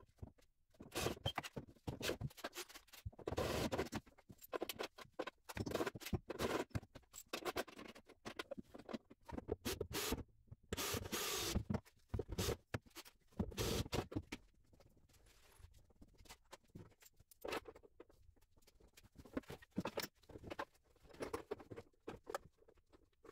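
Drill boring a hole through the car body's sheet metal for a seat-belt eye-bolt mount, run in short, irregular bursts with pauses between.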